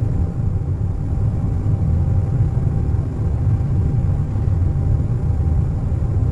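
Airliner cabin noise in flight: a steady low rumble with a faint, constant higher hum running through it.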